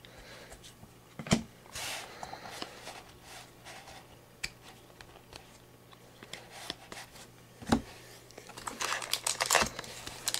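Trading cards being handled and flipped through, with light taps and slides of card stock and a couple of sharper clicks. Near the end, the crinkle of a foil card-pack wrapper being picked up and worked starts to build.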